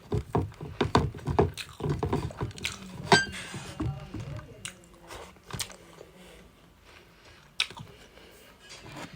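Close chewing and biting of food, a quick run of short crunchy strokes that thins out about halfway through to a few scattered bites.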